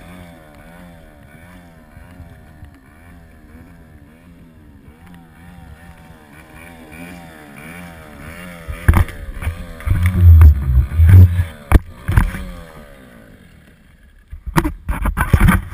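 Small Parsun outboard motor running on an inflatable dinghy, its pitch wavering up and down in a steady rhythm. Loud irregular thumps break in from about nine seconds, with a cluster of sharp knocks near the end.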